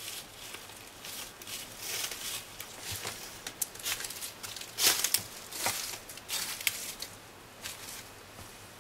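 Irregular puffs of breath blown into a smouldering tinder bundle, with the dry fibres rustling and crackling, to bring the ember to flame. The loudest puff comes about five seconds in.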